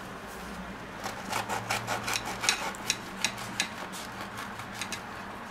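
Small kitchen knife sawing through a crisp, pan-toasted corn tortilla wrap: a run of crackling crunches that starts about a second in and thins out near the end.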